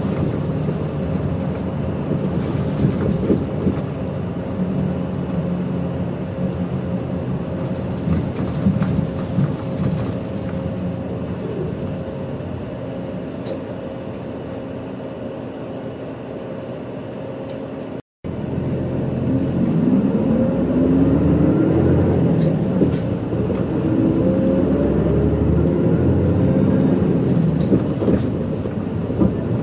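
Interior drone of a medium-size route bus's engine and drivetrain, steady at first. After a short break in the sound about eighteen seconds in, it is louder and rises in pitch again and again as the bus pulls away and accelerates.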